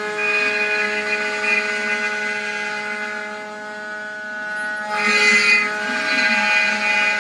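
CNC router spindle running steadily while its bit cuts a spiral pocket into a wooden board, a constant whine over cutting noise. The cutting noise grows louder about five seconds in.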